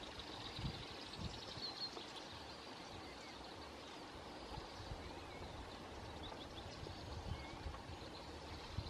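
Faint, steady outdoor background hiss with a few brief, faint bird chirps scattered through it.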